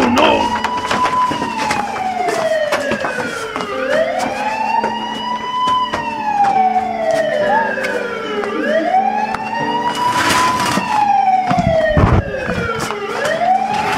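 Police siren wailing, its pitch climbing quickly and then sliding slowly down about every four and a half seconds, three full sweeps. Scattered knocks and a burst of clatter about ten seconds in.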